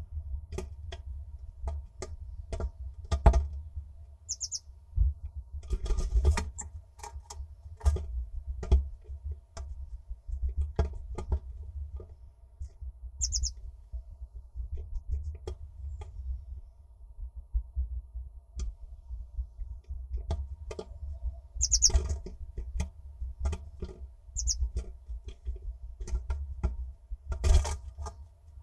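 Blue tit at and inside a wooden nest box: many sharp taps and scratches from the bird moving on the wood, with a few short high-pitched calls. Under it runs a steady low rumble and a faint electrical hum.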